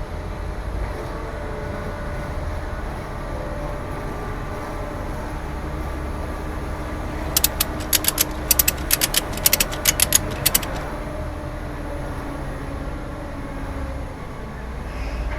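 Outboard motor running steadily at low speed, a continuous drone over a low rumble. Midway a quick run of a dozen or so sharp clicks lasts about three seconds.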